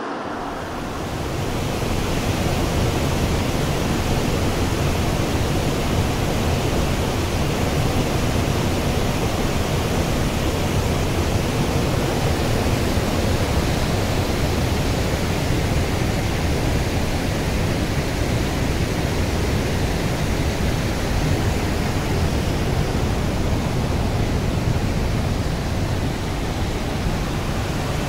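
Water rushing steadily over the low weir of a river headworks, an even, unbroken roar of falling water that gets louder about a second in.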